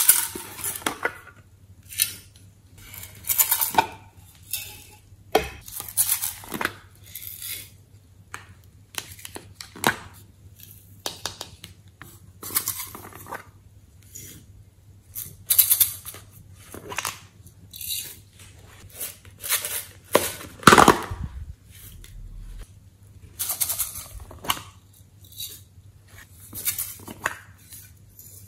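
Small clear plastic cups tapped and shaken as sequins and glitter are poured into a glass tray: a run of clicks, rattles and plastic crinkling every second or so, with the loudest knock about three-quarters of the way through.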